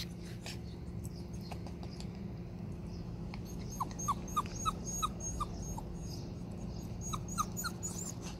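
Maltese dog whimpering in short, high squeaks: a run of about six in the middle and three more near the end. The owner takes the whimpering for a sign that the dog is tired.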